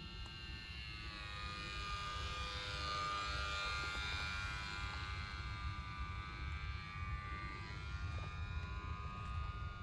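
Small 1304 3000kv brushless outrunner motor spinning a 6030 propeller on a lightweight foam RC plane, buzzing in flight. The whine grows louder as the plane passes close, loudest about three to four seconds in, then eases off with its pitch bending as it flies away.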